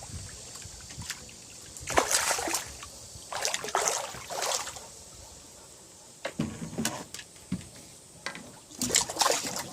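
Water splashing in three short bursts, with light clicks and drips between: a hooked fish thrashing at the pond surface as it is brought in on a fishing pole.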